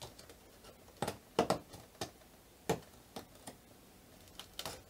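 Cardboard advent calendar door being pried open by hand and a bath-salt sachet pulled out of its compartment: a run of scattered sharp clicks, taps and crinkles.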